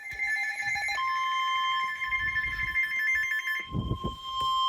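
Emergency Alert System broadcast starting: the rapid, buzzy warble of the digital SAME header bursts, joined about a second in by the National Weather Service's steady single-pitch warning alarm tone. The header stops a little before the end while the alarm tone holds on, with a few low rumbles under it.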